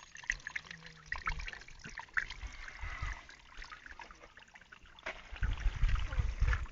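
Water trickling and splashing, with low thumps in the last second or so.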